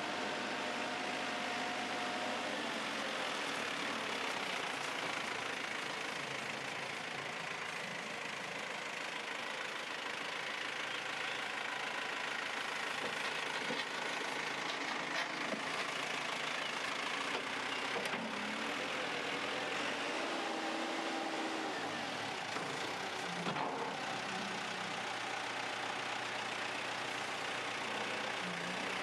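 The diesel engine of a JCB 3CX backhoe loader running steadily, its tone shifting a few times over the last dozen seconds.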